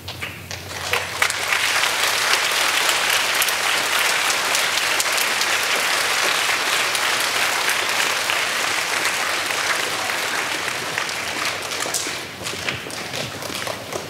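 Large audience applauding. It swells over the first second or two, holds steady, and thins to scattered claps about twelve seconds in.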